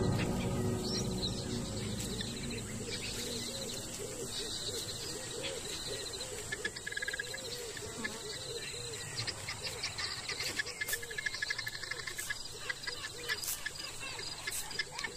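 Wild bush ambience: birds calling in a quick repeating series of short arched notes, with insects chirping rapidly over them. From about halfway through come scattered sharp clicks.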